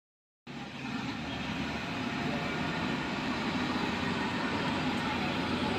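Street traffic: cars and other vehicles running along a busy road, a steady rumble and hiss that cuts in abruptly about half a second in.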